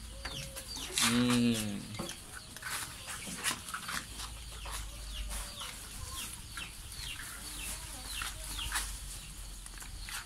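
Chickens clucking, with many short, high, falling peeps throughout and one louder drawn-out call about a second in, over scattered clicks and knocks.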